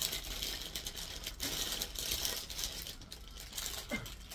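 Clothes being handled: irregular rustling and crinkling of fabric as garments are moved about.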